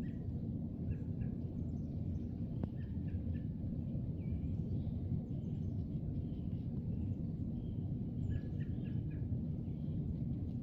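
Short, high small-bird chirps in scattered clusters over a steady low rumble in open woodland.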